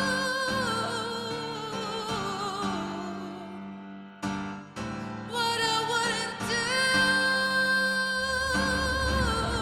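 Slow music: long held, wavering notes with vibrato over low sustained chords. The music thins out briefly about four seconds in, and a deep bass comes in near the end.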